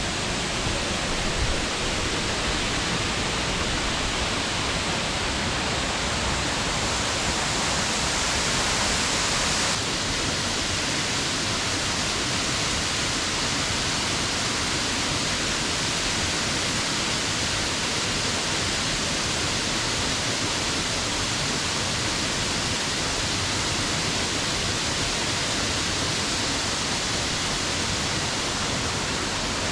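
Waterfall water rushing in a steady, even hiss, its tone shifting slightly about ten seconds in.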